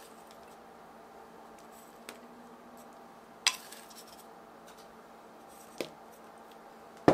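Kitchenware clinking: three sharp, separate taps a second or two apart, the loudest about halfway through, over a faint steady hum.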